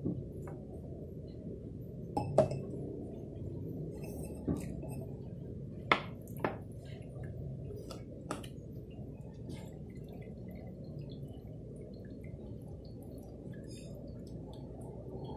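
Sharp glassy clinks and knocks as an AeroPress is flipped over and set down on a glass tumbler holding ice, about seven in the first eight seconds, the loudest about two and a half and six seconds in. A steady low rumble runs underneath throughout.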